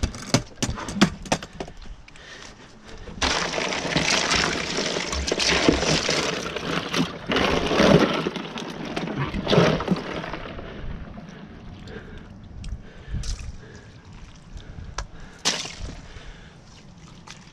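Hands rummaging through ice and plastic bags in a cooler: ice crunching and clattering, with a wet slosh of meltwater. It is loudest from about three to ten seconds in, with a few sharp knocks near the start and scattered clinks later.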